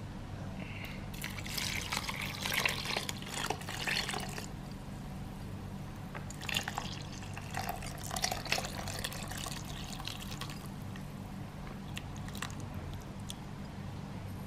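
Milk poured from a glass bowl into a bowl of chopped watermelon, splashing and trickling in two spells, the first about a second in and the second near the middle. A steady low hum runs underneath.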